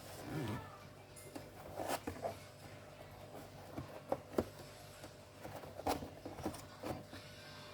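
Irregular light clicks and taps of hands handling a laptop's parts and tools during disassembly, about a dozen over the stretch, with a brief rustle near the start, over a faint steady hum.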